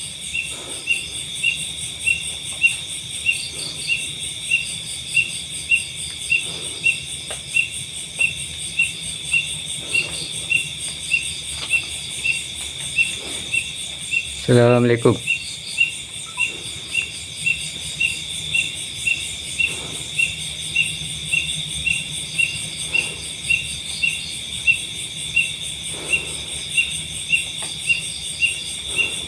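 Chorus of night insects: a steady high-pitched trill with a sharper chirp repeating evenly a little more than once a second.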